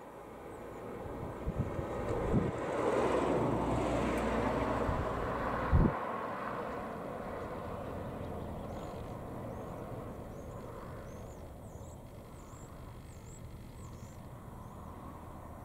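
A vehicle passing, its rushing noise swelling over the first few seconds and fading away, with wind thumping on the microphone. Faint, short, high bird chirps repeat in the second half.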